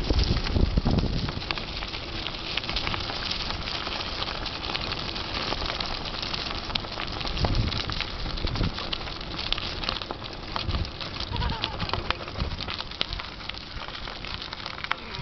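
Mountain bike tyres rolling over fallen leaves and gravel: a steady crackle of many small clicks. Wind rumbles on the handlebar-mounted microphone in the first second or two.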